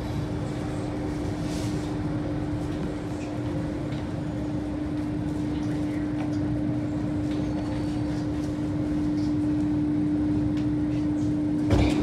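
Alstom Metropolis C830C metro train standing at a station platform, a steady electrical hum under a low rumble, with a sudden loud clunk near the end.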